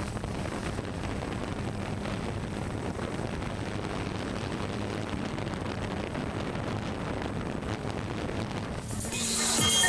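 A steady rushing noise with a faint low hum, then music fading in during the last second.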